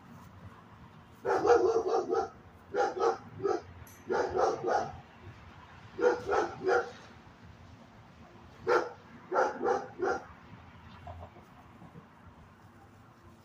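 Small puppy barking in short, high yaps, in quick runs of one to five with pauses between. The barking starts about a second in and stops about ten seconds in.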